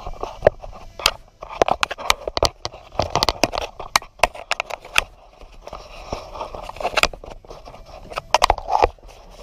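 An irregular string of sharp clicks and knocks with rustling and scraping: hands handling parts in a personal watercraft's engine compartment.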